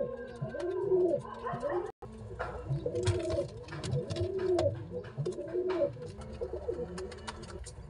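Domestic pigeon cooing, a run of low arching coos repeated several times a second, with faint clicks over it. There is a brief break in the sound about two seconds in.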